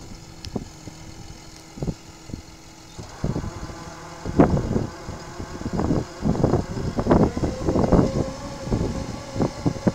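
John Deere 6150R tractor's engine running as it drives a Schuitemaker Rapide 580 loader wagon unloading grass, with uneven gusts of wind buffeting the microphone from about four seconds in.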